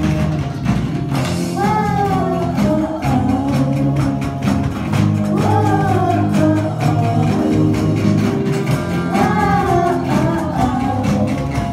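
Live children's rock band playing a pop-rock song on electric guitars, bass, keyboards and drums, with young girls singing the melody in sung phrases a few seconds apart.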